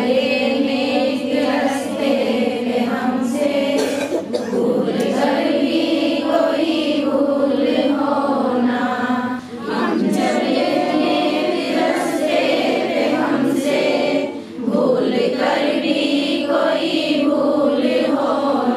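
A group of women singing a prayer together in unison, unaccompanied, in long held lines with brief breaks about nine and a half and fourteen and a half seconds in.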